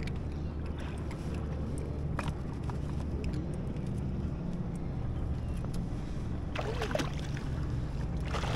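Steady low hum of a boat motor running, with a few faint knocks and a short higher-pitched sound about seven seconds in.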